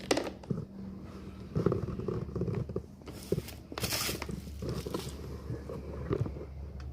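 Hands opening a thermos flask: a string of small knocks and clicks from the lid and flask, with two short rasping noises about three to four seconds in.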